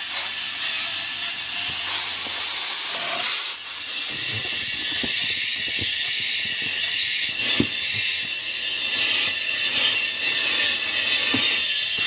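Compressed air hissing steadily into a newly mounted motorcycle tire as it is inflated to seat the bead, with a few light knocks along the way.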